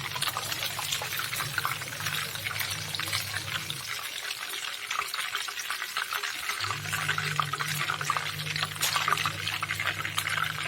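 Tilapia pieces sizzling and crackling in hot oil in a non-stick frying pan, a steady spatter of small pops. A low steady hum runs underneath, stopping for a few seconds around four seconds in and coming back.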